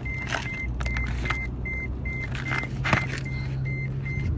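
A car's warning chime beeping evenly, about two and a half beeps a second, over the steady low hum of the car's running engine, and stopping near the end. A few sharp knocks come through, the loudest about three seconds in.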